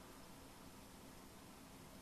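Near silence: steady background hiss of room tone with a faint low hum.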